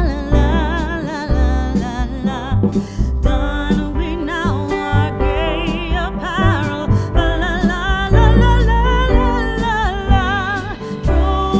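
Background music: a song with a singing voice over guitar and a steady bass.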